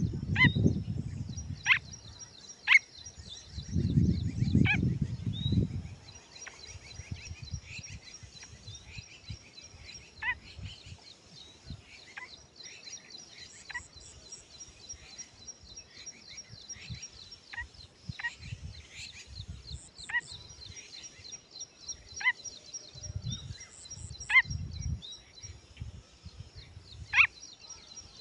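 Young grey francolin (teetar) giving short, sharp single call notes every second or two, over a steady high-pitched chirring in the background. Low rumbles come near the start, about four to six seconds in, and again near the end.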